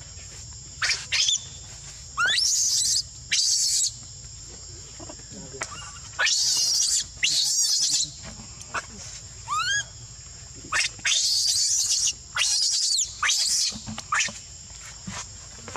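Baby macaque screaming in distress: more than a dozen shrill screams and squeals in bursts with short gaps, several sweeping sharply upward in pitch.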